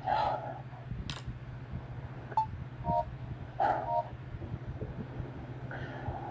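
Short electronic beeps from a smartphone being tapped: a few brief two-note tones in the middle, over a low steady hum.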